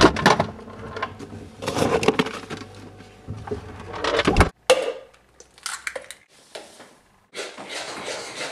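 Kitchen handling noise: a refrigerator being opened and things inside taken out and moved, with rustling and a low rumble, cutting off suddenly about four and a half seconds in. Then scattered knocks and clicks of work at the counter, with a stretch of rustling near the end.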